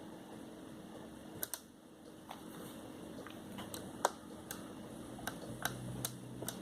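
Irregular light clicks, like the buttons and switches of a Coby CR-A68 clock radio being pressed, over faint hiss; a low hum comes in about five seconds in.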